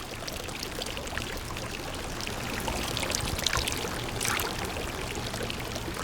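Water pouring and splashing steadily, with a low steady hum underneath.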